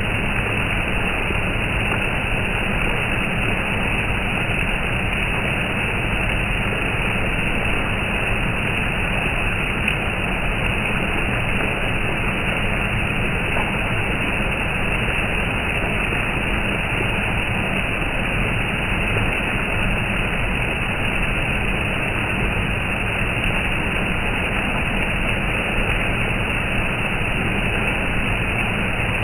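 Steady, calm rain falling as an even hiss, with no thunder claps.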